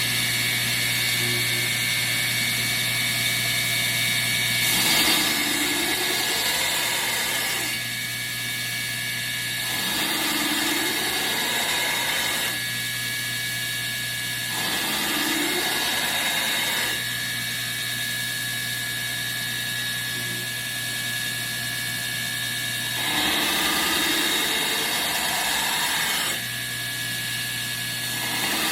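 Belt grinder running with a coarse 24-grit belt as a knife blade is ground against it to put on the bevel. It gives a steady whine, and the sound changes every few seconds as the blade is worked along the belt in passes.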